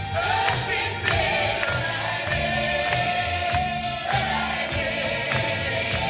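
A large mixed group of men and women singing a song together in chorus through microphones, with long held notes over a steady low musical accompaniment.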